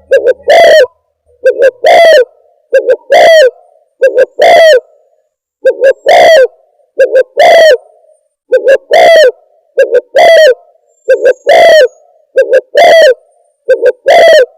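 Spotted dove (tekukur) cooing over and over from a recorded lure call: about eleven phrases a little over a second apart, each a couple of short coos running into a longer coo that bends in pitch. Played so loud that it clips and distorts.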